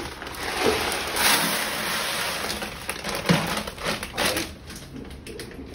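Cat litter pellets poured from a plastic bag into a plastic litter box: a continuous rush of granules that starts about half a second in and tails off after about four and a half seconds.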